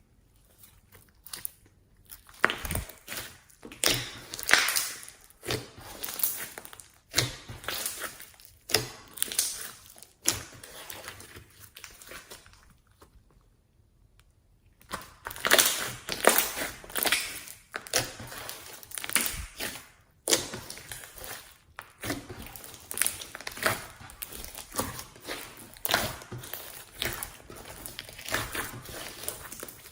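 Slime being squished, stretched and folded by hand: irregular squishes and crackles, pausing for a second or two about halfway through.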